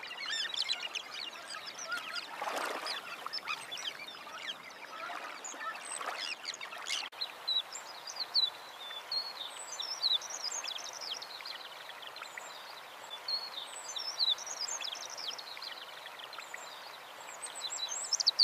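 Wetland bird chorus: many birds calling at once in short, overlapping chirps and whistles over a steady hiss, with an abrupt change in the ambience about seven seconds in.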